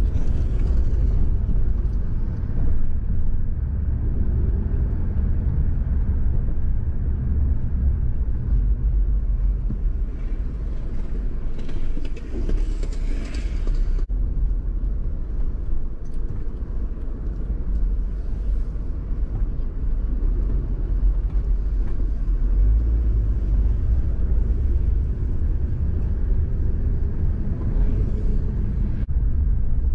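Car driving slowly, heard from inside the cabin: a steady low rumble of engine and tyres, with a brief rise in hiss about halfway through.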